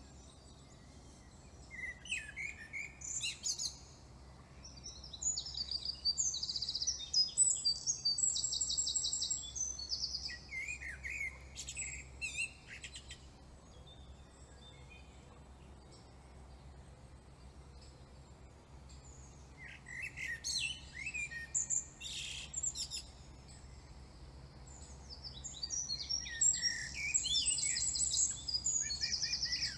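Songbird singing: varied chirps and fast high trills in two long bouts with a pause of several seconds between them, over a faint steady low hum.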